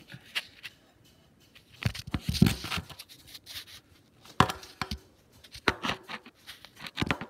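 Irregular bursts of knocking and clattering, the loudest cluster about two seconds in, from tools and steel track hardware being handled close to the microphone.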